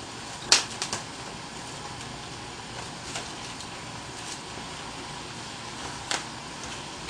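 A few light clicks and knocks from handling a small bowl or container, the sharpest about half a second in and fainter ones later, over steady room hiss.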